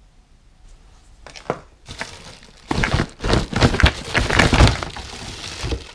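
Plastic wrapping crinkling and a cardboard box rustling and knocking as a handheld steam cleaner is lifted out of its packaging. It starts about two seconds in and is loudest in the last three seconds.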